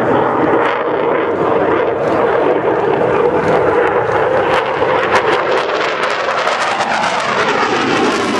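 Eurofighter Typhoon's twin EJ200 turbofans running loud during a display pass, a steady jet rush with crackling through the middle seconds.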